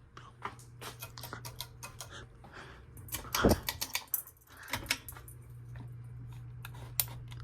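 Irregular light clicking and tapping, with a louder knock about three and a half seconds in, over a steady low hum.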